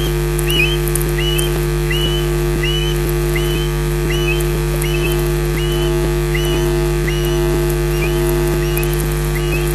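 Male osprey's display call during its sky-dance flight: a long, even run of short, rising whistled notes, about three every two seconds. A steady electrical hum runs underneath.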